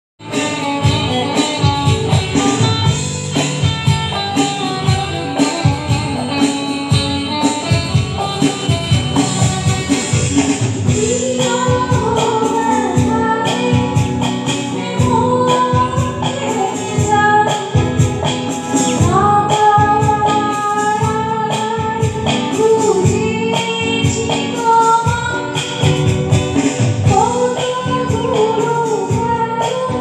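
Live band music with a steady beat, electric guitar and keyboard, and a woman singing the lead into a microphone through the PA.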